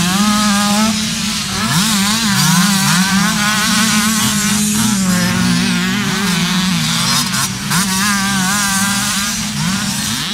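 Several small two-stroke youth motocross bikes racing, their engines revving up and dropping back over and over as the riders work the throttle.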